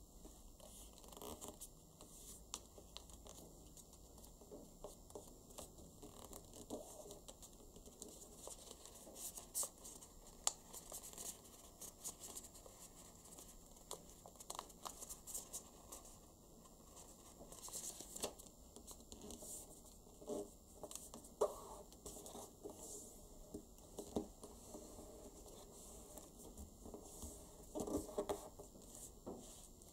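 A sheet of origami paper being folded by hand: faint, scattered rustling and crinkling as fingers crease folds and press them flat against the tabletop, with a few sharper clicks.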